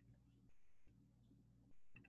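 Near silence: room tone with a low steady hum and two faint, brief soft noises, one about half a second in and one near the end.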